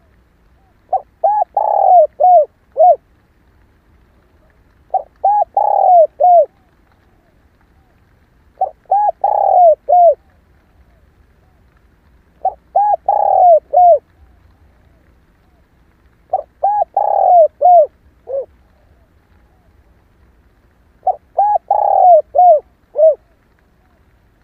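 Female spotted dove cooing: six phrases about four seconds apart, each a quick run of short coos with one longer, falling coo in the middle.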